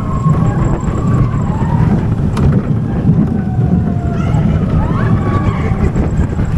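Theme park ride heard from on board: wind buffeting the microphone over the steady rumble of the ride. Faint high wavering tones come and go over it.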